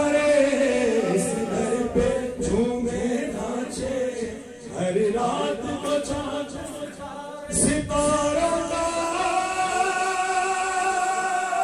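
Men's voices singing a manqabat, a devotional hymn, without instruments. Near the end a long held note is sustained.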